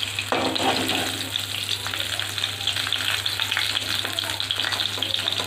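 Cauliflower florets sizzling and crackling in hot oil in a kadai. A metal spatula moves and scrapes in the pan as the pieces are turned and lifted out, with a short scrape in the first second.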